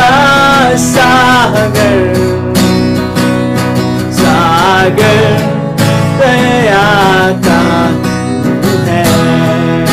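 A man singing a Hindi worship song in long, held phrases, accompanying himself on a strummed acoustic guitar.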